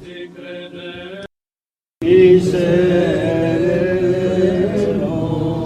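Held tones that cut off abruptly about a second in, a moment of dead silence, then voices chanting together in a slowly wavering, sustained pitch.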